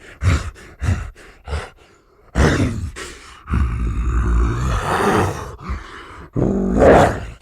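Giant gorilla vocal sound effect: about four short grunts, then a long groaning roar lasting several seconds, and a final roar near the end that is the loudest part.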